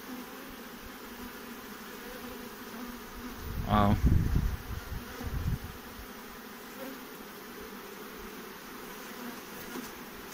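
Honeybees buzzing steadily around an open hive and a frame of brood. About four seconds in a louder, wavering buzz rises in pitch over low rumbling, then the steady hum continues.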